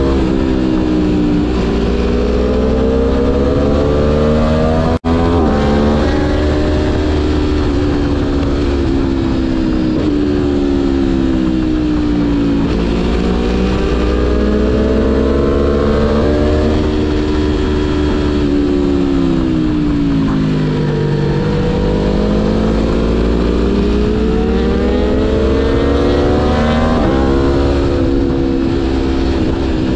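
Aprilia Tuono V4 1100 Factory's V4 engine pulling under load, its pitch rising and falling in long, smooth sweeps as the throttle is rolled on and off. The sound drops out for an instant about five seconds in.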